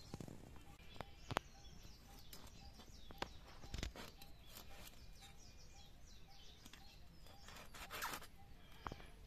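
Small birds chirping in the background. Now and then there is a faint click or scrape of a knife scaling a small fish by hand.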